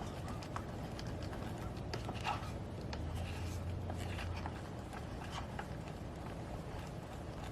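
Wind rumbling on the microphone, with scattered light knocks and clatter of camping gear being handled and packed up.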